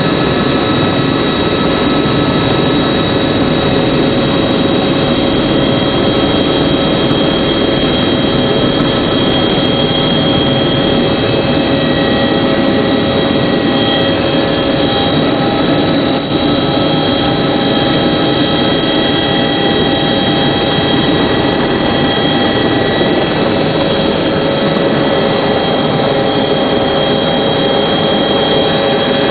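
Steady, loud engine drone, even throughout, with several steady tones running through it.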